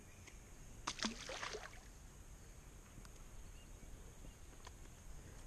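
A knock and a brief splash of water at a kayak about a second in, then faint, quiet background.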